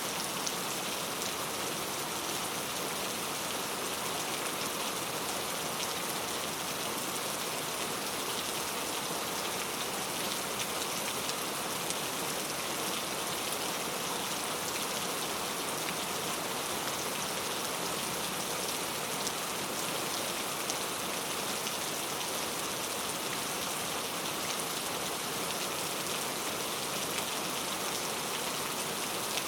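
Steady rain falling, a dense even hiss of drops on a surface with fine patter throughout.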